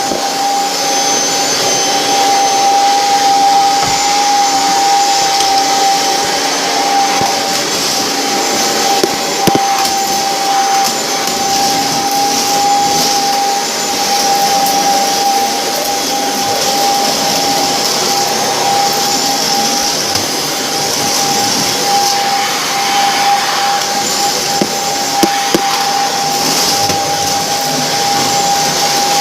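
Vacuum cleaner running steadily, its motor giving a constant whine over the rush of air, with a few faint clicks here and there.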